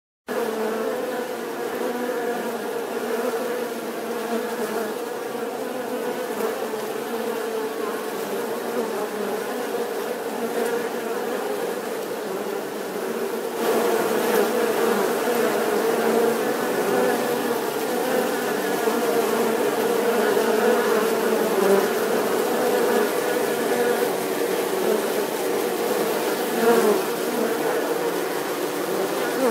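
Honeybees buzzing: a steady, many-toned hum of wingbeats that gets louder about halfway through, as the sound of many bees crowding around a hive entrance.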